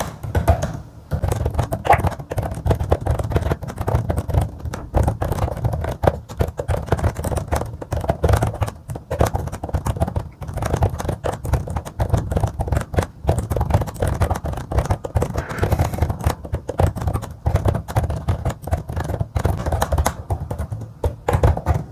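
Computer keyboard being typed on fast during a typing speed test: a continuous rapid run of key clicks, many per second, with no pauses.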